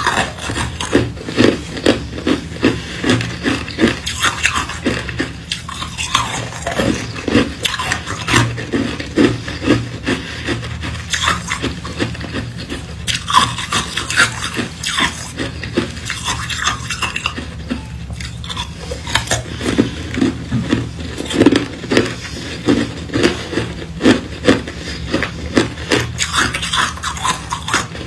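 Close-up crunching of hard tube ice (hollow cylindrical ice cubes) being bitten and chewed, a rapid run of sharp crunches, several a second, over a steady low hum.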